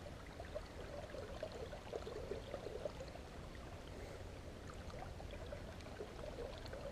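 Small river running fast, a steady babble and trickle of water.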